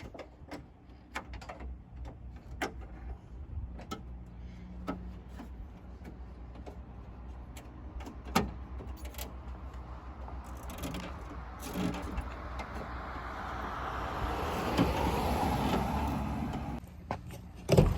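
Scattered light clicks and knocks from hand work on a car door, with one louder knock about halfway through. A rushing noise then builds for several seconds and cuts off suddenly near the end.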